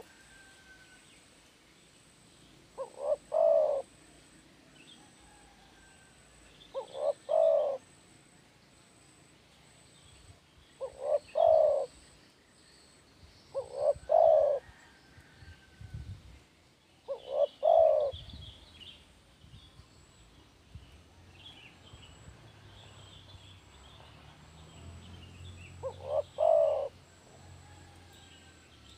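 Spotted dove cooing in full song: six calls a few seconds apart, each a short note or two running into a longer coo. Faint chirps of small birds sound behind it.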